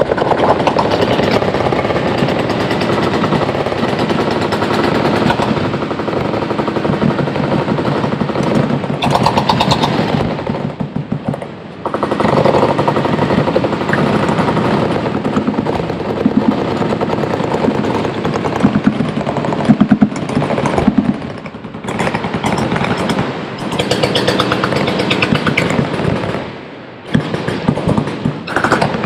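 Sustained full-automatic machine-gun fire, nearly continuous rapid shots with brief lulls about a third of the way in, two-thirds in and near the end.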